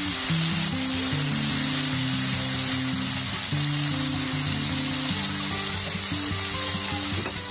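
Masala gravy with koftas sizzling in a hot pan as a little water is spooned in. Background music with low, stepping notes plays under it.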